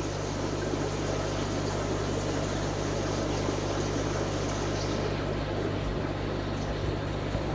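Steady low hum under an even rushing, bubbling water noise: aquarium filtration, an electric air pump and the filter it drives, running in the fry tanks.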